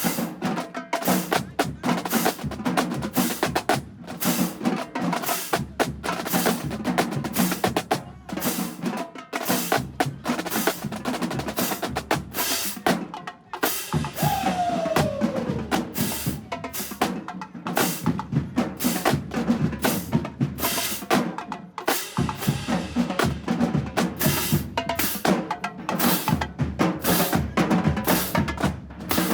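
Marching band drumline playing a street cadence: snare drums and bass drums striking in a fast, steady rhythm. A brief falling tone cuts through about halfway.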